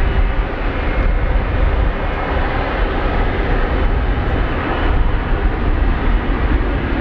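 Jet airliner engines at takeoff power during a takeoff roll: a steady, loud, full noise with a heavy low rumble.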